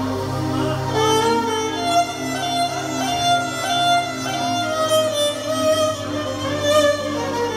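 Live band playing an instrumental passage, led by a solo violin melody of long, held notes with vibrato over a steady low accompaniment.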